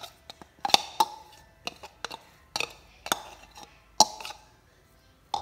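A metal spoon scraping and knocking inside a plastic blender jar and against a ceramic bowl while ground meat is scraped out: a handful of sharp, irregular clinks and knocks.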